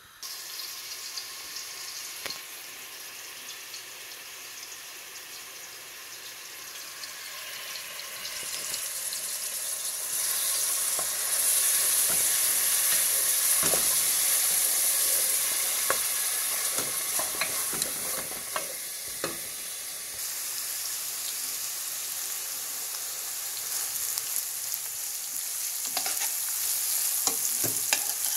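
Food sizzling in hot oil in a pan, stirred with a utensil that clicks against the pan now and then. The sizzle grows louder about a third of the way in.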